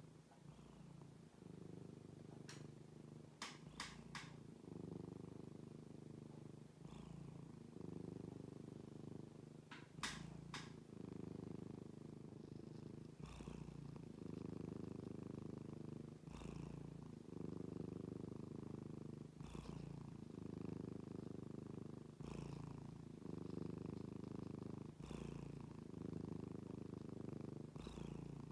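Domestic cat purring steadily and contentedly, the purr changing with each breath in and out about every three seconds. A few sharp clicks come about three to four seconds in and again about ten seconds in.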